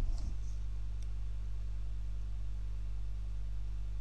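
Steady low electrical hum with faint hiss from the recording setup, and a faint mouse click right at the start.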